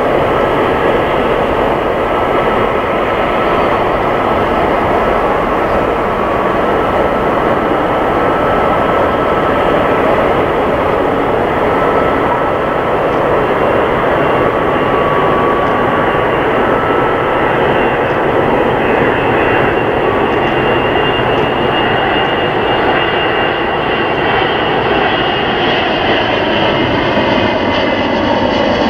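Airbus A380's four Engine Alliance GP7200 turbofans on approach, a steady loud jet rumble with faint whining tones. Near the end, as the airliner comes close, tones in the engine noise begin to slide in pitch.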